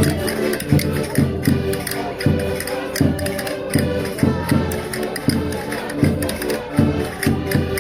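Concertinas, diatonic button accordions, playing a lively Minho folk dance tune: sustained reedy melody over a steady pulsing bass.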